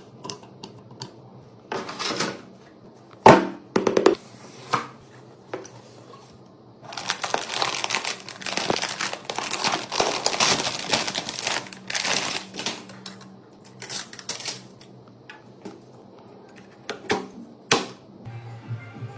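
Hands handling computer hardware: irregular clicks and knocks, with several seconds of rustling in the middle, over a faint low hum.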